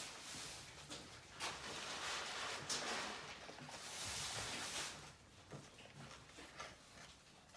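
A person eating close to the microphone: chewing with short wet clicks and crunchy bursts, busier in the first five seconds and quieter after.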